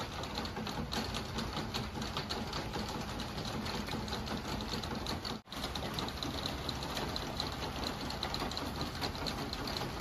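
Steady rain falling, a dense patter of rapid fine ticks from the drops. It cuts out for an instant about halfway through.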